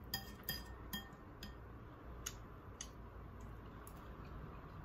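Eating utensils clinking and tapping against a dish: about eight light, scattered clinks, several with a short ringing tone.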